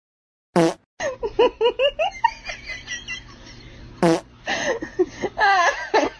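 Two short loud blasts, about half a second in and about four seconds in, with a person's voice between and after them, laughing in quick repeated syllables.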